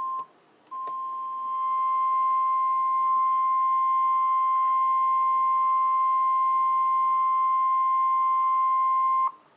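Emergency Alert System attention tone announcing a severe thunderstorm warning: a single steady, high electronic beep. It breaks off briefly just after the start, then resumes under a second in and holds for about eight and a half seconds before cutting off sharply.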